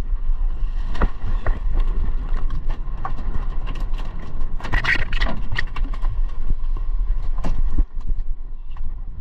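Wind buffeting the microphone, with water splashing and scattered knocks and thuds as a hooked mahi-mahi is hauled alongside and swung over the gunwale into a small boat. The knocking is busiest about halfway through.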